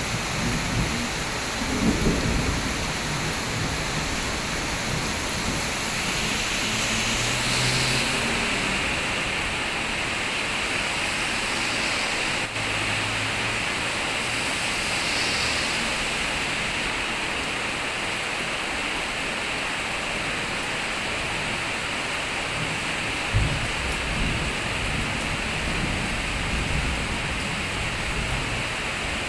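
Heavy tropical downpour, a steady hiss of rain on the road and roofs. Low rumbles of thunder come through near the start and again later on, one opening with a sharp crack. A vehicle passes on the wet road midway.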